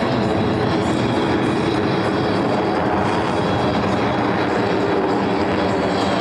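Four F/A-18 Hornets in tight diamond formation passing overhead, their twin turbofan engines making a loud, steady rushing jet noise.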